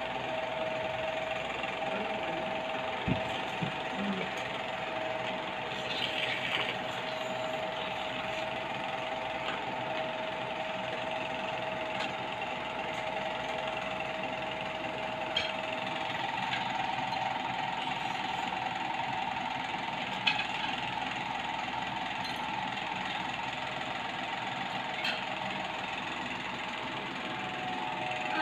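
A steady mechanical hum and hiss with a held tone that shifts higher about halfway through, under a few light clicks and taps of plastic toy cookware being handled.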